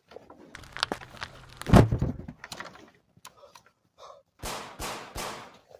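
Clothing rustling as a person slumps and shifts, with a dull thump a little under two seconds in. Three heavy breaths follow near the end.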